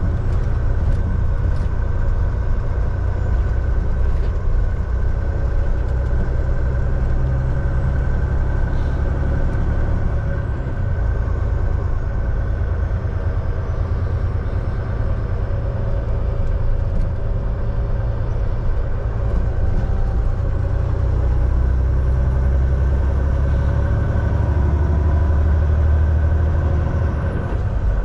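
Semi-truck's diesel engine and road noise while driving along, heard from inside the cab: a steady low rumble with a faint, even hum above it.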